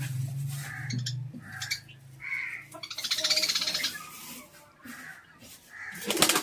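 Farmyard birds calling: short harsh calls repeating about once a second, with a rapid chattering call about three seconds in. A couple of knocks near the end.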